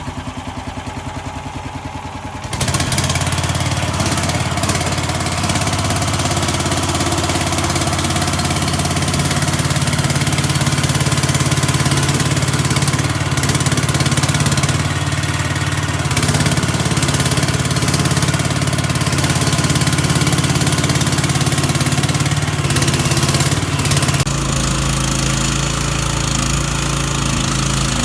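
Heavy construction machine's diesel engine running low, then about two and a half seconds in it revs up and runs loud and steady under load. Its note shifts and drops slightly near the end.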